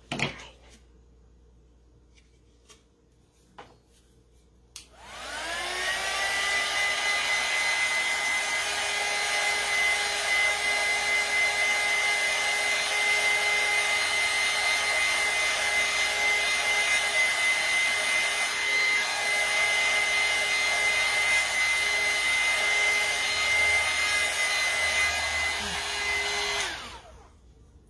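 Small craft heat gun switched on about five seconds in. Its fan spins up with a rising whine, then runs with a steady whine and blowing hiss while drying fresh paint. It cuts off shortly before the end.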